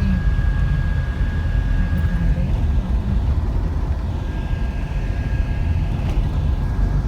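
Steady low rumble of a vehicle on the move, with a faint steady whine that fades out partway through and returns faintly later.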